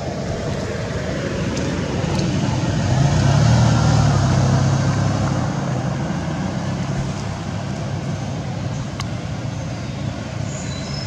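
Motor vehicle engine on the road swelling as it passes, loudest about three to four seconds in, then fading back into a steady traffic rumble.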